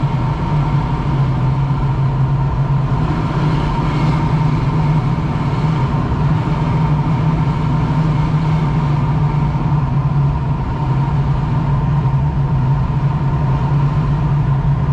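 Steady rush of air over a sailplane's canopy in flight, heard from inside the cockpit, with a constant low hum underneath.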